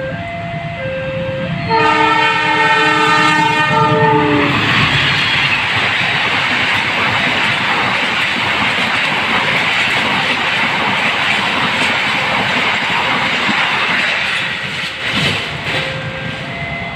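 Level-crossing warning bell alternating between two tones, broken about two seconds in by a long multi-note horn blast from a CC 206 diesel locomotive. The passenger coaches then rush past with a steady rumble and wheel clatter, and the crossing bell's two tones return near the end.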